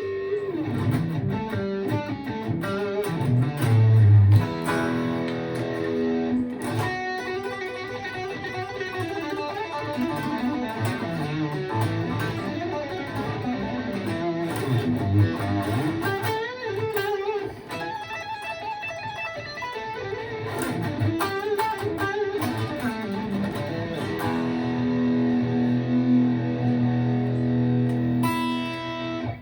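Gibson ES-335 electric guitar played in fast shred-style lead lines, ending on a long held note that cuts off abruptly.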